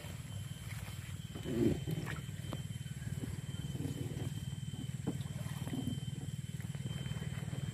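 Small boat engine running steadily at low speed, a low pulsing hum, with a few short thuds as the boat pushes through water hyacinth.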